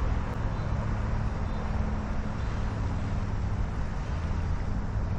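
Steady low drone of the pumps at a warm-water outlet, with the even rush of the churning discharge water.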